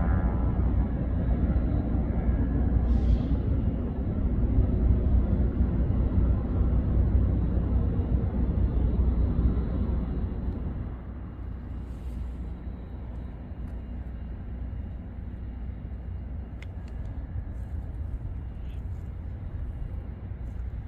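Low, steady outdoor rumble, louder for the first half and dropping noticeably about halfway through.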